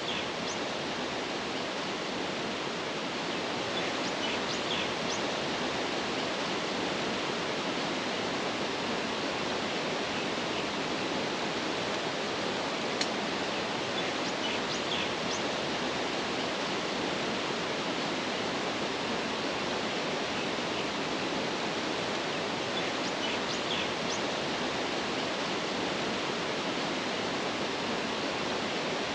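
Steady, even outdoor rushing noise, water-like, with a few faint high bird chirps now and then and a single sharp click about thirteen seconds in.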